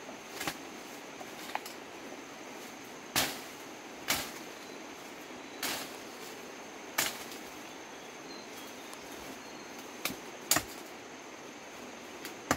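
Machete chopping bamboo: about nine sharp strokes at uneven intervals, the loudest in the middle of the run.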